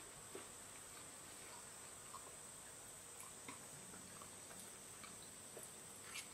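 Faint, steady high-pitched trilling of insects, with scattered light clicks of chopsticks against a plate.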